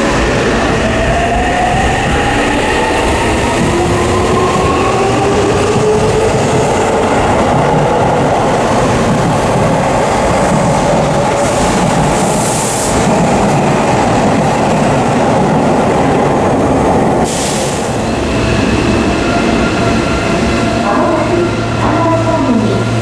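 Seibu 6000 series electric train accelerating away from a platform: its traction motor whine rises in pitch over the first few seconds, under a steady rumble of wheels on rail. About seventeen seconds in the sound cuts to a steady low hum with a few held tones.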